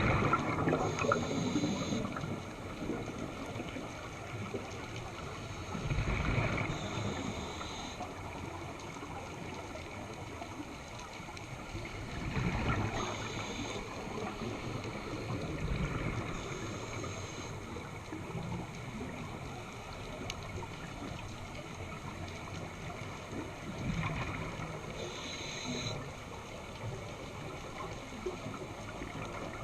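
Scuba diver's regulator breathing, heard underwater: rumbling bursts of exhaled bubbles every several seconds, with stretches of hissing air between them as the diver inhales.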